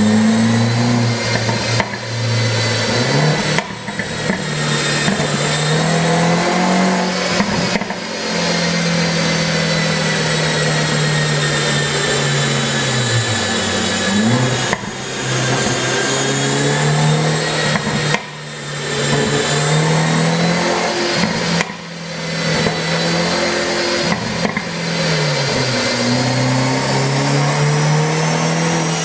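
Mercedes-Benz C200's turbocharged four-cylinder engine and exhaust, revved repeatedly; the engine note climbs and falls, and the sound briefly drops away and picks up again several times. The engine is tuned to pop on the exhaust when the throttle is lifted.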